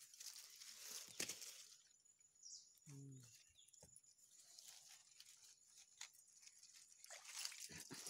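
Faint rustling of grass and leaves as someone moves through the undergrowth, with one short, low grunt-like vocal sound about three seconds in.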